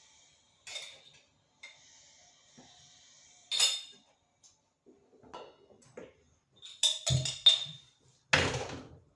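Household items being handled: a series of short clinks and knocks, busiest in the second half, with the longest and loudest knock near the end.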